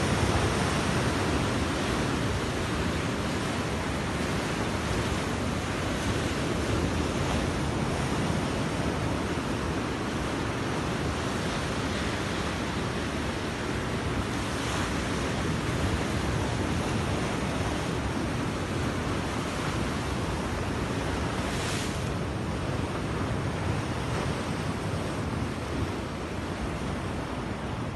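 Sea surf washing and breaking against rocks as a steady rush, with wind buffeting the microphone.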